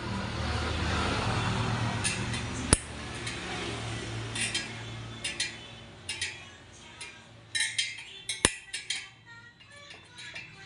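Spoked motorcycle wheel spinning freely on a truing stand, a steady whirr that fades over the first few seconds. Then a run of light metallic clinks and ticks from a spoke wrench on the spokes and nipples, with two sharp clicks.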